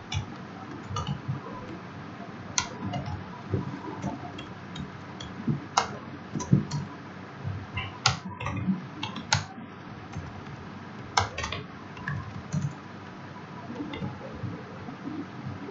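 Typing on a computer keyboard: irregular key clicks in short runs with pauses between, a few keystrokes louder than the rest.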